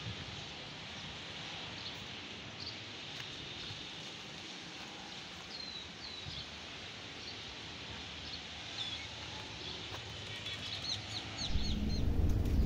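Outdoor background with small birds chirping now and then, the chirps growing more frequent toward the end. Near the end a loud low steady hum comes in.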